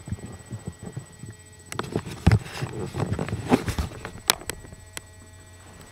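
Footsteps and handling noise from a camera carried while walking: irregular thumps and clicks. The loudest thumps come a little over two seconds in and about three and a half seconds in, with a sharp click shortly after.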